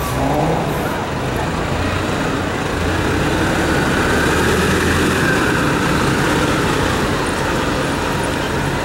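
1999 RTS T80-206 transit bus engine running as the bus turns and drives past, a steady drone that swells about halfway through as it goes by, over street traffic.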